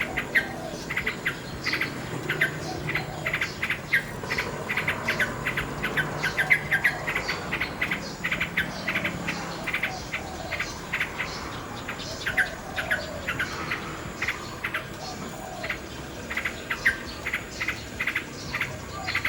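Nightingale singing: a dense stream of rapid chirps, clicks and trilled phrases, repeated without pause.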